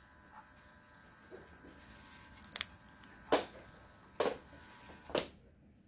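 Small motor in a cardboard model microwave running with a faint steady whine, which stops about five seconds in. Four sharp clicks come about a second apart over the second half.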